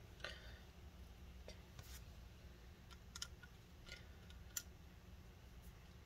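A handful of faint, sharp clicks and ticks from a precision screwdriver working the tiny screws of an iPhone 6S Plus screen's metal shield plate, with near silence between them.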